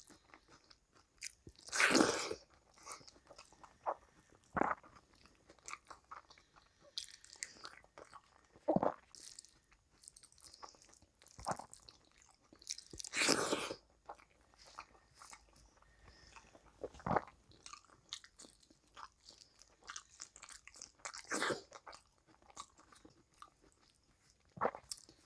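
Close-miked sounds of a person eating rice and curry by hand: fingers mixing and squeezing rice on the plate, with chewing and mouth noises coming in scattered, irregular bursts. The two loudest come about two seconds in and about halfway through.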